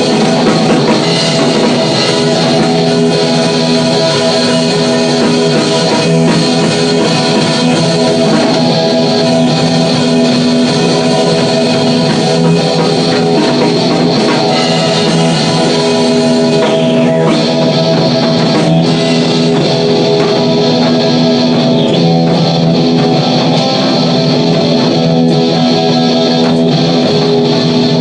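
Electric guitar playing a loud, sustained rock jam through an amp effect, with drums behind it.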